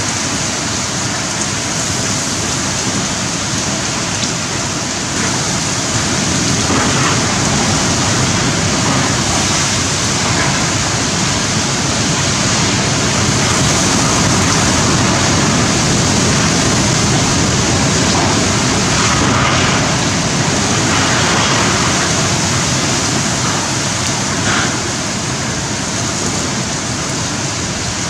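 Cyclone-force wind and torrential rain, a dense steady rush of noise that swells in gusts through the middle: a tropical super cyclone at full impact.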